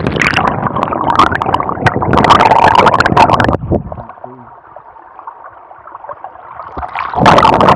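Creek water splashing and gurgling right against the camera's microphone, the camera getting wet. About four seconds in the sound drops and turns muffled and dull, then turns loud again near the end.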